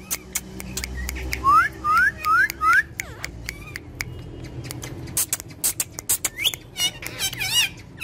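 Alexandrine and ringneck parakeets calling: many sharp short chirps and squawks, with a run of four short rising whistles about a second and a half in.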